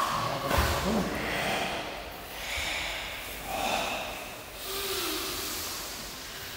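Group of Goju-ryu karateka breathing forcefully in unison during a breathing kata: several long, noisy exhalations about a second or so apart.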